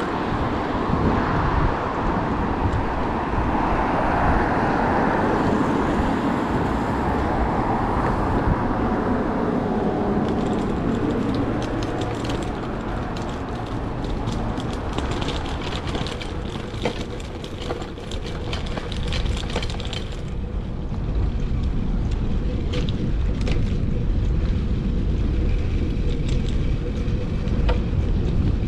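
Street and traffic noise heard from a moving bicycle: a steady low rumble, with a louder passing-traffic swell in the first third and a run of light clicks and ticks in the middle.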